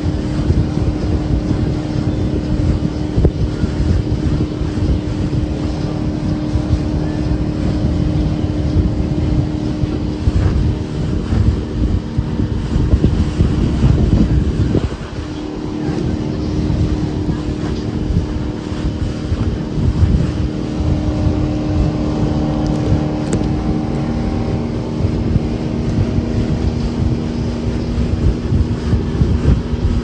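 Boat engine running at speed with a steady drone, under heavy wind buffeting on the microphone and the rush of spray thrown off the hull. The wind eases briefly about halfway through.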